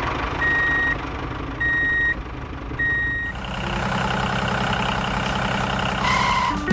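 A heavy vehicle's reversing alarm beeping, a single steady tone about once every 1.2 seconds, over a running engine. The beeps stop about three seconds in and the engine runs on.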